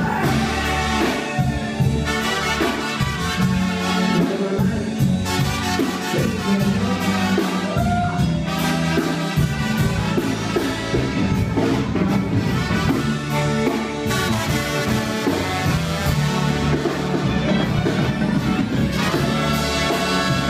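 Banda music: a brass band playing trumpets and trombones over a strong, steady bass line and a regular beat.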